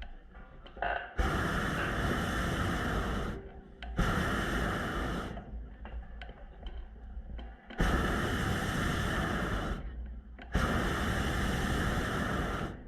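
Hot air balloon's propane burner firing in four blasts of one to two seconds each, a loud hissing rush that starts and cuts off abruptly each time.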